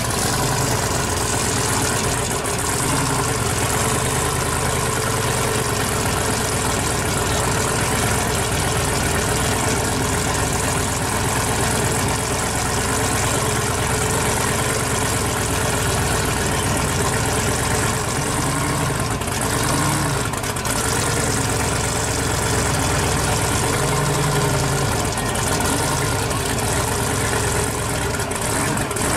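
A 1955 Chevy twin-turbo pro street drag car's engine idling steadily.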